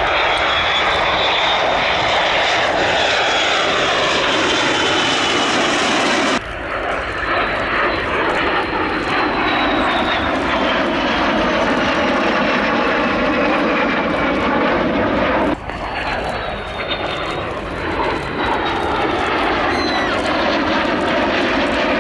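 A pair of de Havilland Vampire jets flying past in formation, the whine of their Goblin turbojets slowly falling in pitch as they pass. The sound changes abruptly twice, about six and fifteen seconds in.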